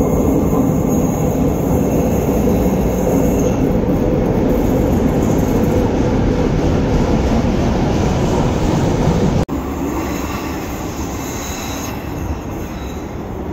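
Tyne & Wear Metro train running into an underground station, a steady rumble echoing in the tunnel with a faint wheel squeal. The sound cuts off suddenly about nine and a half seconds in to a second Metro train arriving at a platform, a little quieter.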